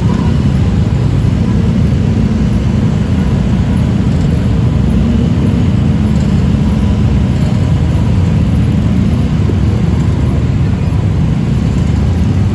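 Steady low rumble of vehicle and road traffic noise, even throughout, with no horn sounding.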